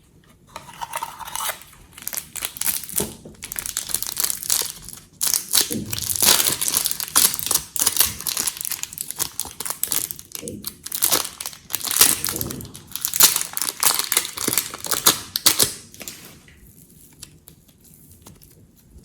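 Glossy slime being squished and mixed by hand, a dense run of sticky crackling and clicking that pauses briefly a couple of times and dies down near the end.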